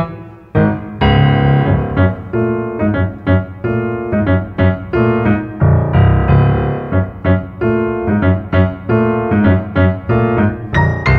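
Steinway grand piano played solo: after a short break just after the start, a loud, fast passage of dense chords and runs.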